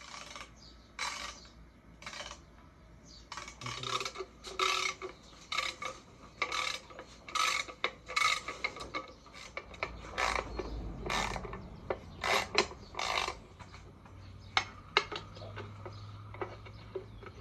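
Hand ratchet wrench worked in short, irregular back-and-forth strokes, rasping as it loosens the valve cover bolts on a Chevy 327 small-block.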